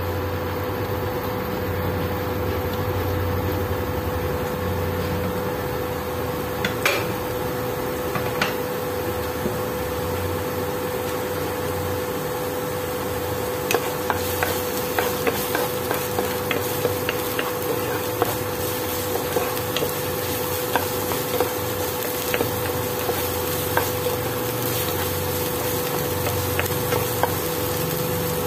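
Minced garlic sizzling in hot oil in a nonstick frying pan as it is sautéed, over a steady hum. A wooden spatula stirs it, tapping and scraping the pan with sharp clicks, more often in the second half.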